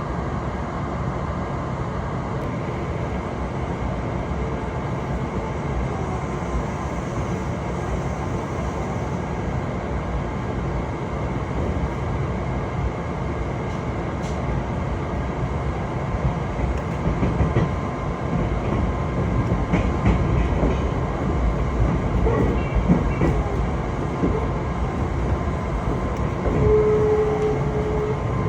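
Passenger train running along the rails: a steady rumble of wheels and running gear with some light clatter. A steady whine comes in near the end.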